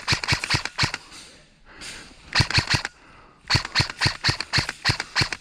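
Airsoft gun firing three quick strings of sharp single shots, about four to five a second, with short pauses between them.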